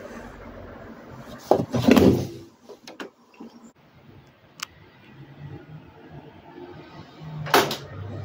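Powder detergent poured into a front-loading washing machine's dispenser drawer, with a plastic clatter as the drawer is handled about two seconds in. A sharp click follows, then another knock, and a low steady hum from the machine builds near the end.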